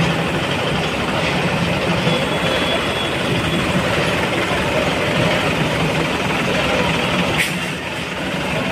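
Tractor's diesel engine running steadily at low speed while pulling a loaded trailer, with one sharp knock about seven seconds in.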